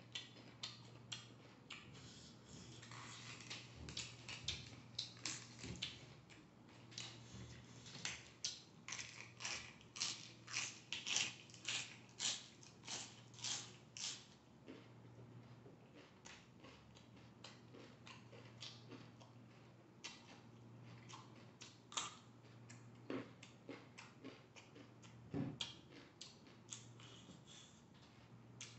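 Biting and crunching through raw vegetables while chewing, a crisp run of crunches at about two a second in the middle, then slower, sparser chewing.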